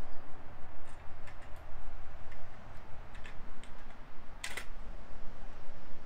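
Small plastic clicks and taps from handling an HEI distributor and its cap, a few light ones then a sharper click about four and a half seconds in.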